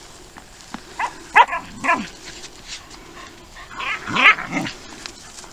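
Tracking dog barking: three short barks a second or two in, then a louder run of barks around four seconds in.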